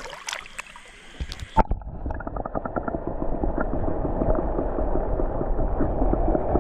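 Muffled bubbling and sloshing of creek water, heard with the microphone submerged. It cuts in abruptly about one and a half seconds in and grows louder. Before that there are a few light clicks and splashes above the water.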